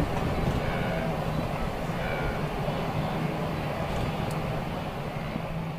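Vehicle engine idling: a steady low hum under a rumbling noise.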